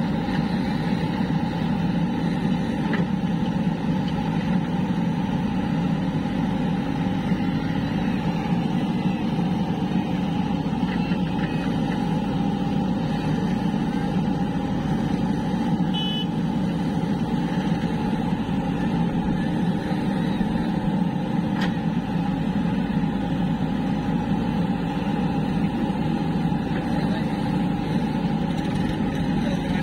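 Diesel engine of a JCB 3DX backhoe loader running steadily at a constant speed while the backhoe works, with no breaks or revs.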